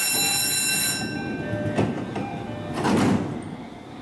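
A steady electronic warning tone stops about a second in, then the sliding passenger doors of a JR E531-series commuter train close, with a click and then a louder thump about three seconds in.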